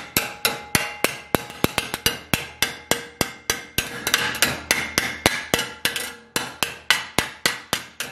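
Hammer blows on a sheet-steel patch held over an oak former in a vise, folding a bend into the metal. The taps come quickly and evenly, about four a second, each with a short metallic ring.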